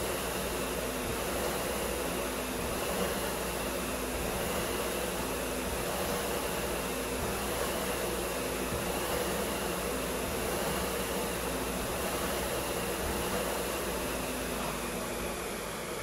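Concept2 SkiErg's fan flywheel whooshing as its handles are pulled, surging in a steady rhythm of about one pull a second. Near the end the strokes stop and the sound drops.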